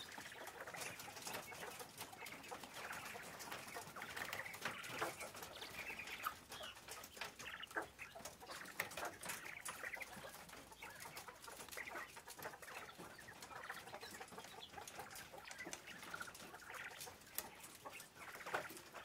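A cage of White Giant quail making soft, scattered clucking and chirping calls, with light clicks mixed in.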